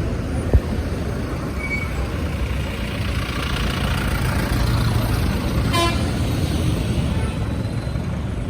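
Road vehicle noise: a steady engine and tyre rumble, with a sharp knock about half a second in and a short vehicle horn toot about six seconds in.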